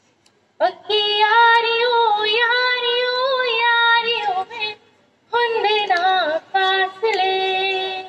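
A woman singing solo into a microphone, holding long notes with slides and wavering pitch. She breaks off briefly about two-thirds of the way through, then sings on.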